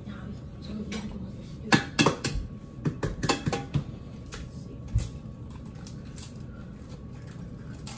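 Eggs tapped against the rim of a metal pot to crack them: sharp knocks with a brief metallic ring, a pair about two seconds in, a cluster around three seconds in, and a last knock about five seconds in.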